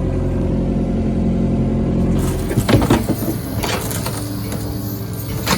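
Mini excavator's engine running steadily. About two seconds in, a series of sharp cracking and crunching impacts begins as the excavator breaks up an old sailboat's hull, with the engine still running underneath.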